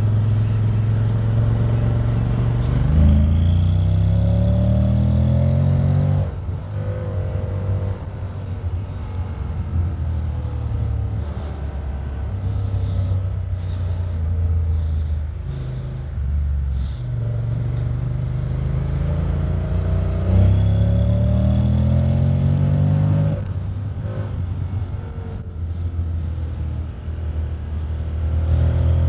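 Honda X-ADV 750's parallel-twin engine on the open road, the revs climbing twice under throttle, at about 3 and 20 seconds in, and falling away sharply as the throttle closes each time, with steadier running at lower revs in between.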